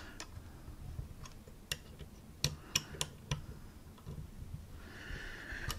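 Light, irregular clicks and taps of metal camera-rig parts as a SmallRig SSD holder is shifted and clamped on a camera cage, several clicks close together in the middle. A soft rustle comes near the end.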